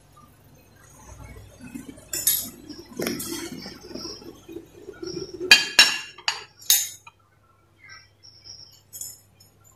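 Handling and rustling, then four sharp glass clinks between about five and a half and seven seconds in as a drinking glass is set down on a glass tray. A few faint light taps follow near the end.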